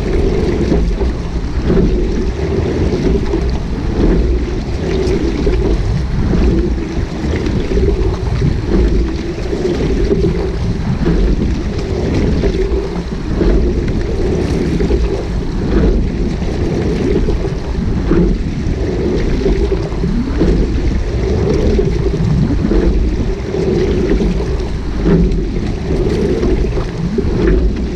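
Wind buffeting the microphone of a bow-mounted camera on a rowing shell, with water rushing along the hull. Faint knocks come about every two seconds with the rowing strokes.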